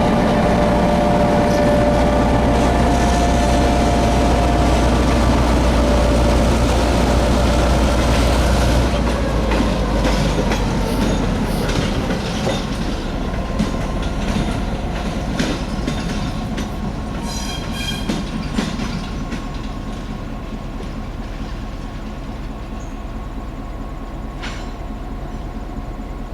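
EMD GP9 diesel locomotive's 16-cylinder 567 engine running loud and steady, then fading after about nine seconds as the train moves off. The railcar wheels click over rail joints, with a brief high wheel squeal about two-thirds of the way through.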